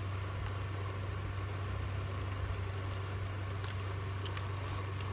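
A steady low hum under faint background noise, with a few faint ticks about two-thirds of the way through.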